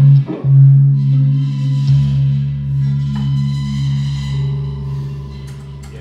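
A small rock band holds a chord after a run of short stabs: electric guitar ringing out, slowly fading, with a low bass note joining about two seconds in and cymbals washing over it.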